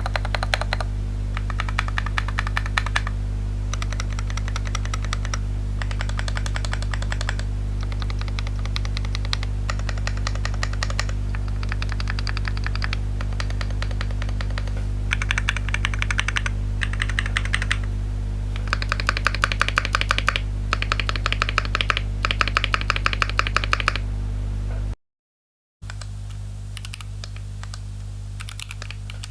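Typing on an RK61 Pro mechanical keyboard fitted with Akko CS switches: stretches of fast keystroke clatter broken by short pauses, over a steady low hum. The sound cuts out for about a second near the end, then the typing resumes more quietly.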